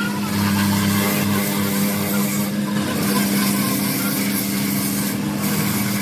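A motor running steadily with an even hum and a wide hiss.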